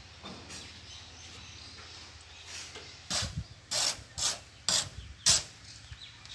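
About five short scraping strokes in quick succession in the second half, roughly half a second apart, over a faint steady low hum.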